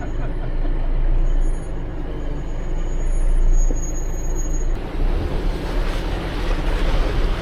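Jeep driving slowly over a rough, rocky off-road trail: a steady low engine and road rumble, with a hissy noise joining in about two-thirds of the way through.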